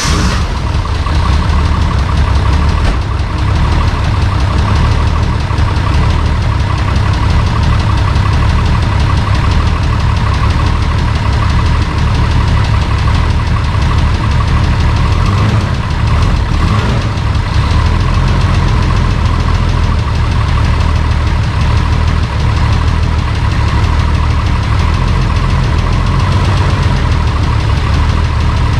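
Holden VL Turbo Commodore's turbocharged RB30 straight-six idling steadily on cold oil, just after being started.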